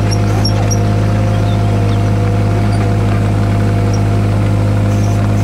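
Takeuchi TB016 mini excavator's diesel engine running steadily, heard from the operator's seat.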